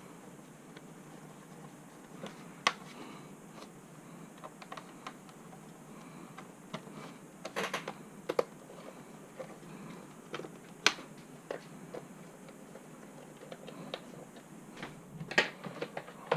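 Small screwdriver driving tiny screws back into a plastic laptop bottom cover: irregular light clicks and taps a second or more apart, with a short cluster of them about halfway through, over low hiss.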